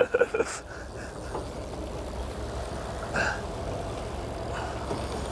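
Boat engine idling with a steady low rumble under wind and sea noise, with one brief, short sound about three seconds in.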